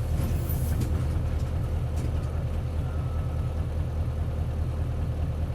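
Isuzu Cubic city bus's 8PE1-S V8 diesel engine running steadily with a deep, even rumble, heard from inside the bus.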